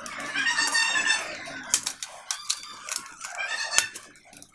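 A bird calls in the background: one drawn-out high-pitched call of about a second and a half near the start and a shorter one later. Sharp clicks come from a screwdriver working the screw terminals of a plastic switch board.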